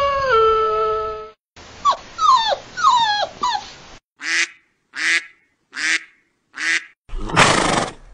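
A girl imitating a dog: a held howl that drops in pitch and stops about a second in, then a quick run of falling yips, four short evenly spaced barks, and a rough hissing growl near the end.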